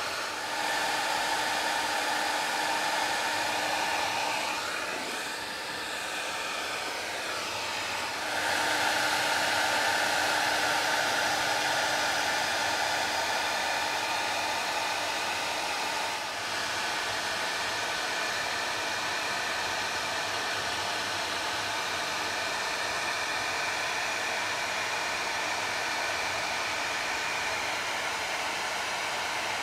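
Heavy-duty hair dryer blowing on high heat, a steady rush of air with a motor whine. It dips briefly about five seconds in, then runs louder from about eight seconds.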